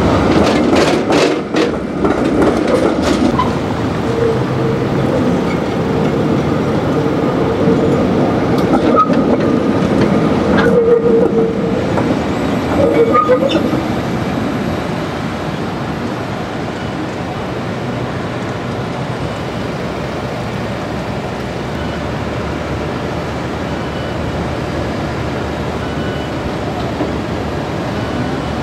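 Valmet-built articulated trams running past on street track: the wheels click over rail joints for the first few seconds. A steady rumble follows, with a thin whine that stops about halfway through and leaves a quieter, even rumble.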